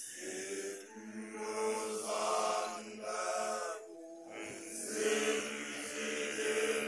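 Group of young male Basotho initiates (makoloane) chanting together, holding long notes over a steady low drone, in phrases of one to two seconds.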